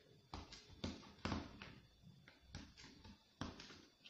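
A knife chopping a bar of dark chocolate with almonds on a plastic cutting board: a quick, uneven series of sharp chopping strikes, a few per second, in clusters of two or three.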